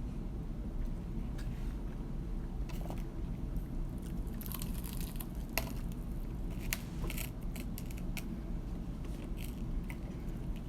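Close-up eating of KFC fried chicken and sides: chewing and biting, with scattered short crisp crunches and clicks.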